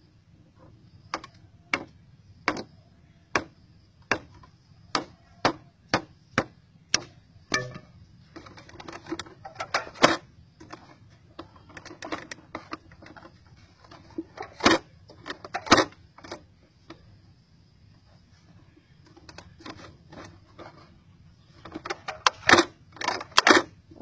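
Sharp clicks and knocks from hands working a clear plastic bottle trap and a thin wooden stick, about one or two a second for the first several seconds, then scattered, with a quick run of louder knocks near the end.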